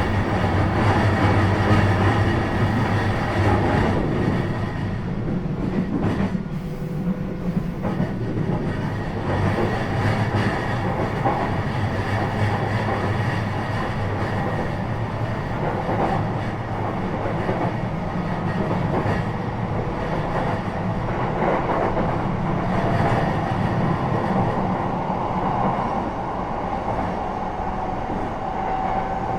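Running noise inside an E233 series 3000 electric commuter train under way: steady rumble of the wheels on the rails and the car body, with faint steady tones, one rising slightly near the end.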